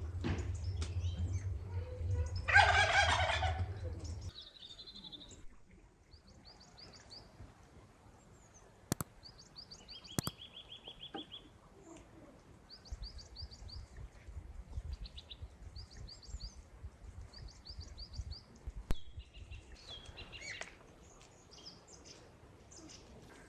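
A loud burst of calls from a fowl about two and a half seconds in, followed by small birds chirping in short, repeated high phrases, with a steady low rumble under the first few seconds.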